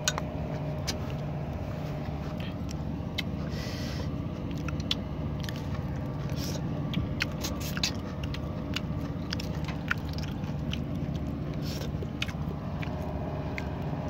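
Eating at close range: chewing and biting into shrimp, with many short sharp clicks and crunches scattered throughout, over a steady low engine hum.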